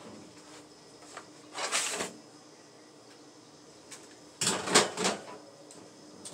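Kitchen handling noises: two short clattering bursts, about one and a half seconds in and again around four and a half seconds, with a few light clicks between them over a faint steady hum.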